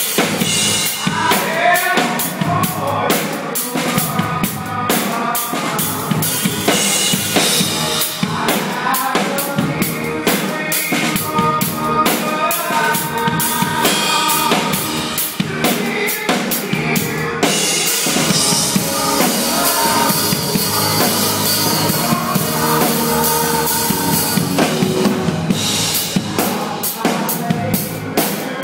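Live rock drum kit played in a busy drum solo: rapid snare, tom and bass-drum hits with cymbal crashes. A long stretch of ringing cymbal wash comes about two-thirds of the way through, and some sustained pitched notes carry on under the drums.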